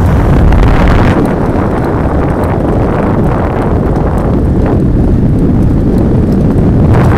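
Loud, steady wind buffeting the microphone of a bike-mounted camera while riding a road bike at speed.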